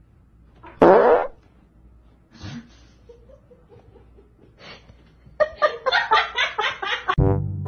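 A loud fart about a second in, from the person the Chihuahua is lying on. Near the end comes a run of quick laughter.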